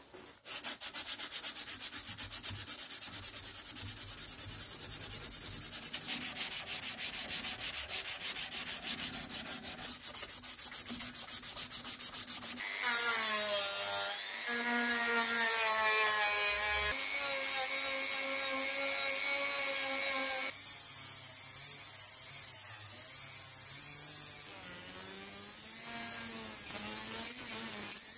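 A strip of sandpaper is pulled rapidly back and forth around a metal tube clamped in a vise, making a quick, even, rhythmic rasp. About halfway through this gives way to the high whine of a small rotary tool, its pitch wavering as the abrasive wheel works the metal.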